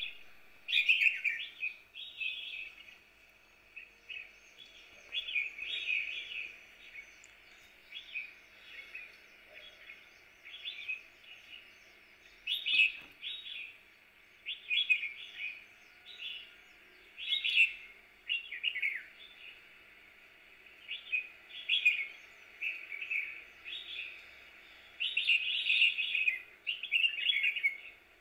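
Small songbirds chirping, short high chirps and trills coming again and again every second or so, over a faint steady hiss.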